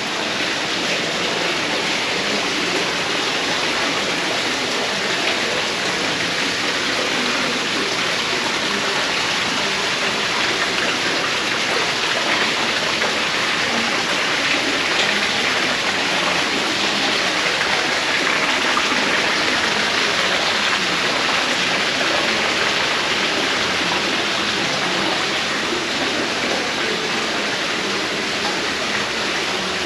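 Steady rush of running water, an even unbroken hiss that holds the same level throughout.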